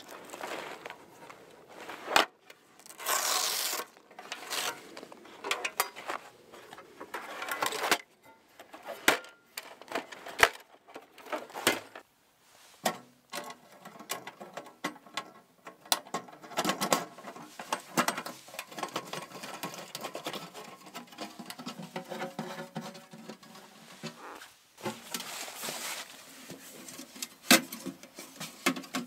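Handling of a sheet-metal tent stove: scattered clinks and knocks of metal parts being unpacked and fitted, mixed with rustling of the fabric carry bag and dry leaves.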